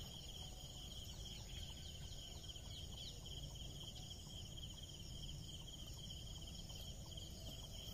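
Steady, high, pulsing insect chirring with a faint low rumble underneath.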